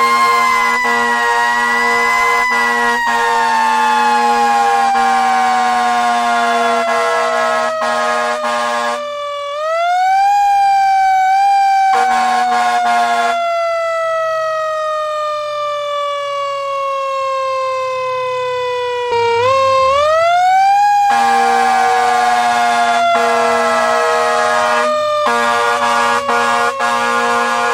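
Siren wailing: its pitch climbs quickly and then slowly falls for about eight to ten seconds, winding up again twice. A steady low air-horn blast is held under it for roughly the first nine seconds, briefly near the middle, and again through much of the last third.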